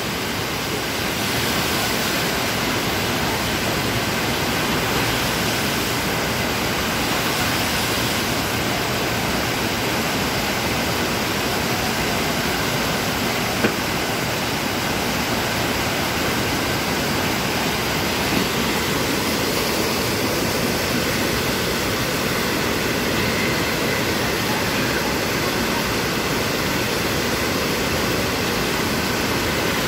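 Steady rushing of water pumped up the slope of a FlowRider sheet-wave machine, one even roar of spray throughout. A single brief knock about halfway through.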